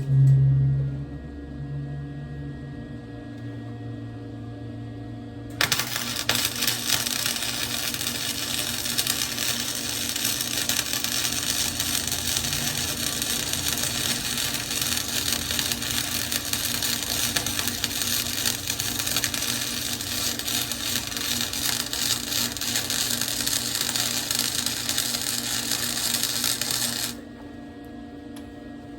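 Electric arc welding on a steel wheel rim: a dense, steady crackle that starts about five seconds in and cuts off sharply about twenty seconds later, over a constant low hum.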